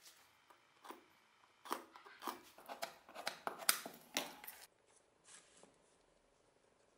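Workbench handling noise: a run of clicks, taps and scrapes as wooden handle scales, a steel caliper and the tape-wrapped cleaver are moved and laid on the wooden bench top. The clicks come thickest over a few seconds in the middle, then die away to a couple of faint taps.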